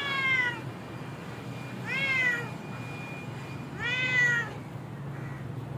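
A tabby cat meowing three times, about two seconds apart, each meow short and rising then falling in pitch.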